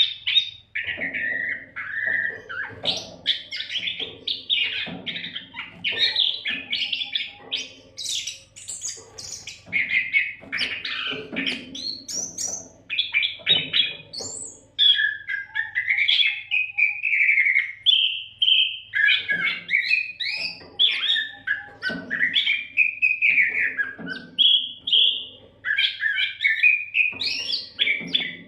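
Oriental magpie-robin (kacer) singing a continuous, varied song of whistles and chattering phrases with hardly a pause.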